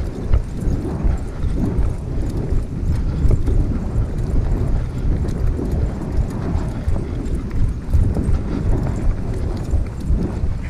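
A runner's steady footfalls on a trail, about three to a second, in a quick even rhythm.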